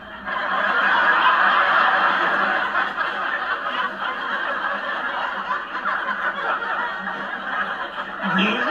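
Many people laughing together, the laughter swelling up abruptly at the start and carrying on as a dense wash of voices.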